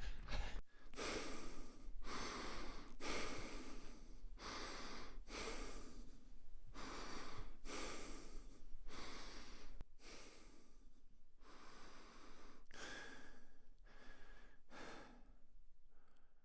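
A person breathing in and out through the nose at a steady, even pace. Each inhale and exhale is a separate rush of air, roughly one a second.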